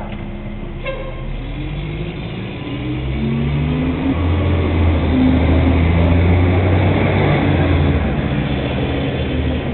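A rear-loader refuse truck's engine approaching and growing louder from about three seconds in, its pitch shifting up and down.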